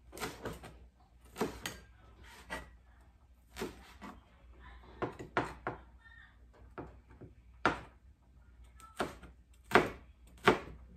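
Chef's knife slicing a jalapeño on a plastic cutting board: irregular sharp knocks of the blade striking the board, about one a second, with the loudest strokes near the end.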